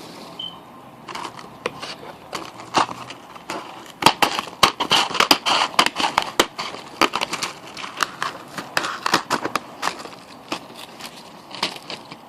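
Small cardboard box of Boston Baked Beans candy being torn open and handled: cardboard tearing and crinkling with many sharp crackles and clicks, busiest through the middle.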